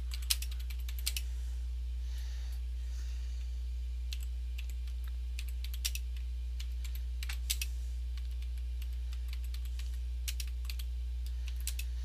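Typing on a computer keyboard: irregular keystroke clicks, some in quick runs, over a steady low electrical hum.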